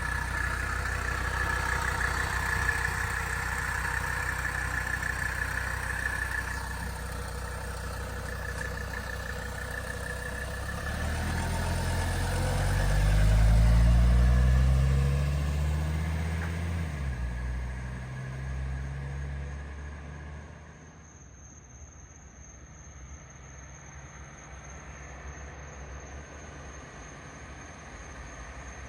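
1983 Mercedes-Benz 300CD's 3.0-litre turbodiesel inline-five running. Its note climbs in steps around the middle, is loudest about 14 seconds in, then drops away to a quieter, steady run.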